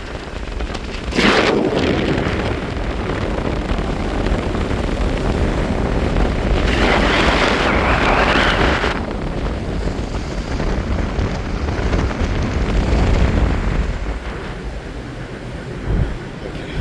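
Storm wind buffeting the microphone with a heavy, rumbling rush. Gusts hit hard about a second in and again from about seven to nine seconds.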